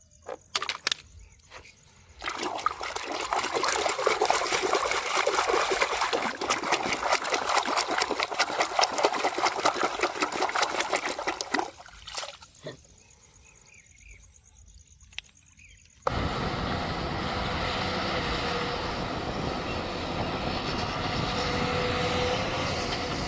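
Water running and splashing while toy cars are washed, for about ten seconds, then it stops. A few seconds later a different steady noise with a low rumble comes in.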